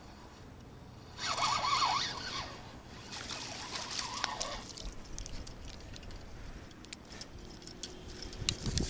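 Water splashing in two bursts, followed by a string of light clicks and rustles.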